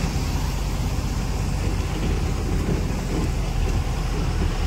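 Truck driving, heard from inside the cab: a steady low engine rumble with road and wind hiss over it.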